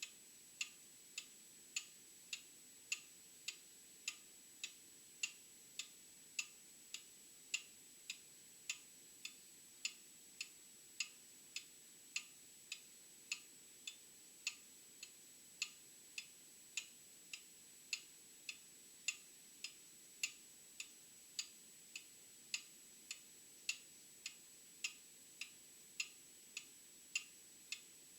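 Old mechanical clock ticking steadily, sharp even ticks a little under two per second. A faint steady high-pitched whine runs underneath.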